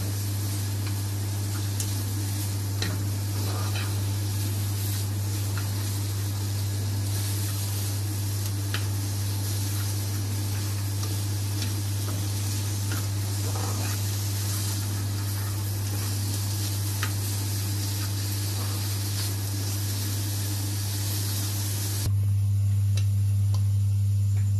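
Sliced onion, capsicum, tomato and green chillies sizzling in hot oil in a frying pan, with a wooden spatula stirring and clicking against the pan now and then. A steady low hum runs underneath, and the sizzling stops about two seconds before the end, leaving the hum alone.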